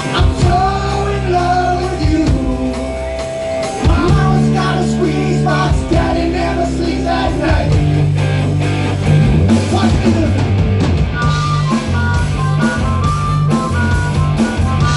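Live rock band playing loud, with male lead vocals over electric guitar, bass and drums. The singing drops out about halfway through and the band plays on.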